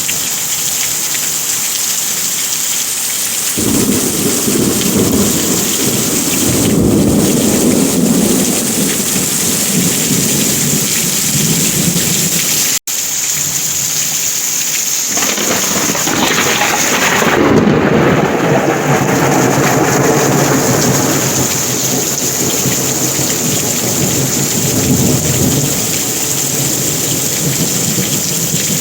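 Heavy rain falling steadily, with two long, low rolls of thunder: one starting a few seconds in, the other about halfway through. The sound cuts out for an instant just before the middle.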